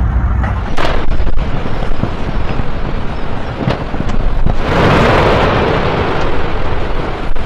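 Explosive volcanic eruption: a continuous deep rumble with sudden loud blasts about a second in and near the end, and a loud rushing surge about five seconds in.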